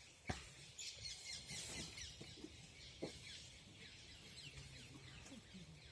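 Faint forest ambience with many thin, high bird chirps and a couple of soft clicks.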